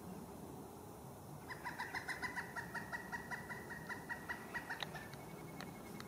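Pileated woodpecker calling: a quick run of about two dozen even, ringing notes, about seven a second, starting about a second and a half in and lasting some three seconds.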